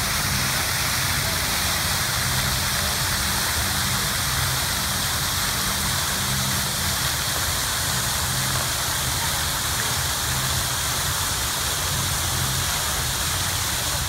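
Fountain water jets spraying and splashing: a steady, loud rushing hiss, with a low hum beneath it.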